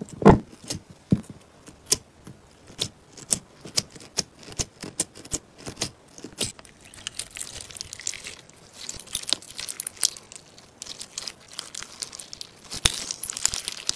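Clear slime packed with small plastic pearl beads being pressed, poked and stretched by hand: irregular sticky pops and clicks, with a loud pop just after the start, turning into a denser crackle in the second half as the slime is pulled and stretched.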